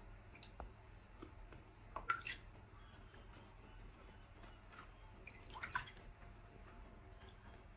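Small drips and light splashes of water in a plastic bath basin as a baby monkey is floated and moved gently in it: a few short, scattered plinks, the loudest about two seconds in and another just before six seconds.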